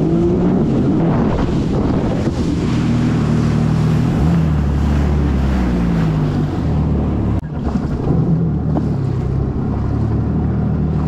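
Jet ski engine running under way, its pitch rising and falling with the throttle, with a short drop about seven seconds in. Wind buffets the microphone and water rushes past throughout.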